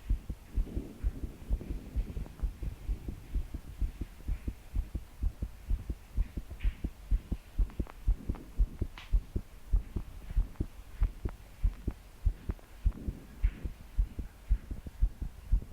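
A young woman's heartbeat, fast and pounding, heard as a steady run of low, regular thumps: the palpitations of a racing heart. Soft breaths swell in now and then among the beats.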